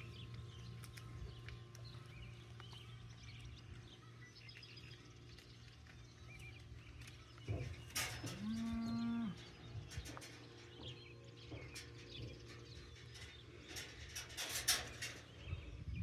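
A dairy cow moos once, a single call of a little over a second about eight seconds in, over a steady low hum. Near the end come a few sharp clicks and scuffs of someone stepping across soft, muddy ground.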